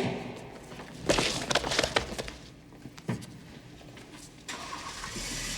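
Movie sound effects of the Magnavolt car alarm electrocuting a thief: a sharp hit, then a spell of crackling electric zaps about a second in, another sharp knock near the middle, and a hiss near the end.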